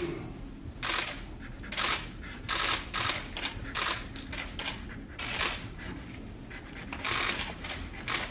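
Many camera shutters clicking in irregular bursts and quick runs, as from a crowd of press photographers.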